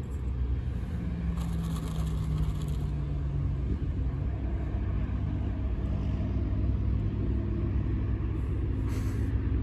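Steady low rumble of a motor vehicle engine running close by, its pitch shifting slowly.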